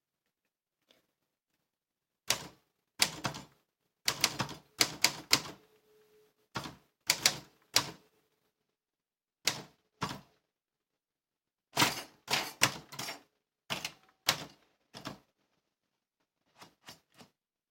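Manual typewriter keys struck one at a time in uneven runs of sharp clacks, with a few fainter strokes near the end.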